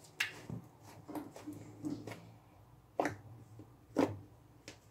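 Hands squeezing and pulling a large batch of fluffy shaving-foam and glue slime, giving irregular sticky pops and squelches, the sharpest about three and four seconds in.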